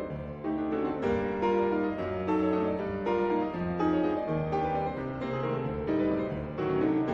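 Concert grand piano played solo: a classical passage of many quick notes and chords.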